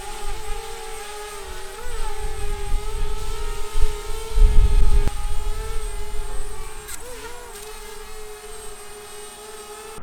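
DJI Spark quadcopter's propellers whining steadily as it hovers in strong wind, the pitch dipping and wobbling briefly twice as the motors correct against the gusts. Low wind rumble buffets the microphone in gusts, strongest about halfway through.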